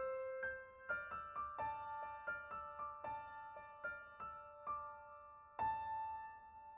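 Slow, gentle piano music: soft single notes in an even pattern, with a chord struck about five and a half seconds in that rings on.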